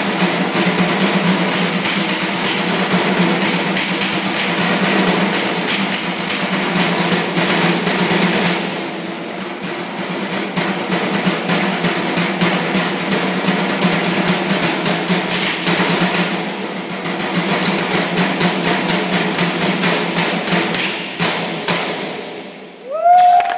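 A drumline beating drumsticks on garbage cans in fast, dense rhythms, easing off twice along the way. The playing stops near the end, and a loud whoop and cheering break out.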